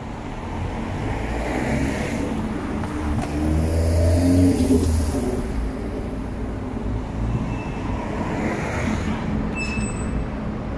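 Road traffic passing close by on a city street. Engine rumble swells to a peak about four seconds in, tyre hiss rises and falls as vehicles go by, and there is a brief high-pitched tone near the end.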